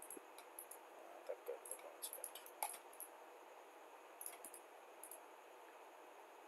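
Computer mouse clicking: a scattering of faint, sharp clicks over a steady hiss, bunched together about two seconds in and again past the four-second mark.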